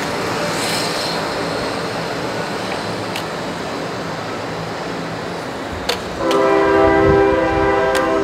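Steady outdoor street noise, then about six seconds in a loud horn blast sounding a chord of several notes, held for about two seconds.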